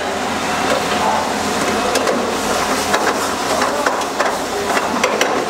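A metal ladle stirs and scrapes thick gravy in a steel frying pan on a high gas flame, knocking against the pan again and again with sharp clicks. Under it runs a steady low roar.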